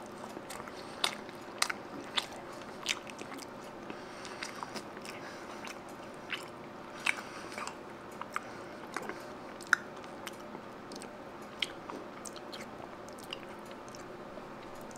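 A person chewing a handmade chocolate chip cookie: irregular soft crunches and clicks of the mouth, a few at a time, over a quiet room.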